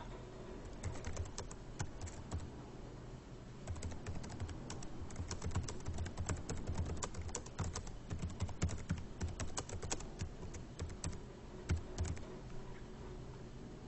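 Typing on a computer keyboard: a short run of keystrokes, a pause of about a second, then a long irregular run of keystrokes that thins out and stops near the end.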